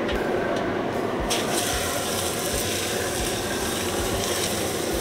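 Meat sizzling as a rolled, stuffed flank steak is laid on an oiled, ripping-hot grill plate over a charcoal fire. The sizzle starts suddenly about a second in and carries on steadily.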